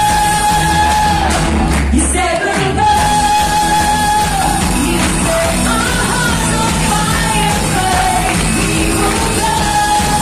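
Background song with a singing voice holding long notes over an instrumental accompaniment.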